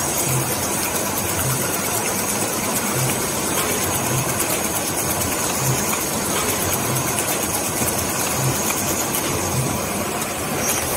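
Steady mechanical rumble with a faint low thud about every second and a half, and light clicking of a fork whisking beaten eggs in a steel bowl.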